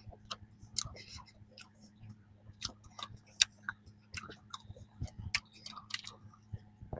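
A person chewing and biting a flaky strawberry danish pastry: irregular crisp crackles and mouth clicks.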